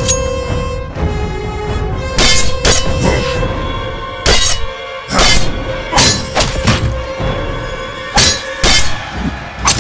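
Background music with held tones, over a run of about ten sharp, loud impact sound effects at irregular intervals, starting about two seconds in: the hits of a staged fight.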